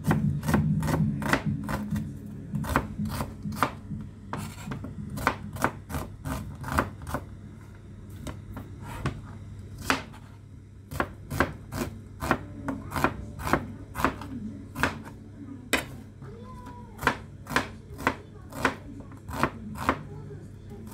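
Kitchen knife slicing red onions on a plastic cutting board: sharp, irregular knocks of the blade striking the board, about two to three a second.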